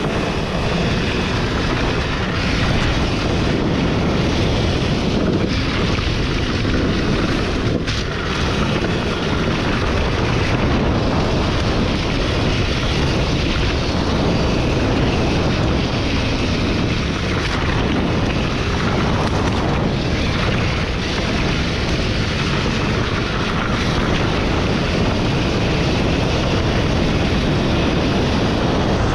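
Heavy wind buffeting the microphone of a camera riding on a moving dirt bike, a steady low roar with the bike's engine buried underneath.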